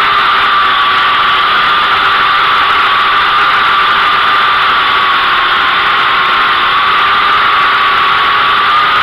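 Syma X8W quadcopter's brushed electric motors and propellers in flight, heard close up from the drone's own onboard camera: a loud, steady whine that wavers slightly in pitch.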